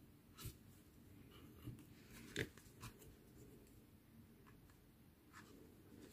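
Near-silent room tone with faint rustles and a few soft clicks of yarn and a sewing needle being handled and drawn through a crocheted piece. The sharpest click comes about two and a half seconds in.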